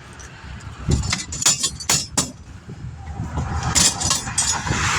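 Several sharp metallic clanks and knocks of tools and equipment being handled during a roadside tire change, in the first half. After that, interstate traffic swells as a vehicle passes close by near the end.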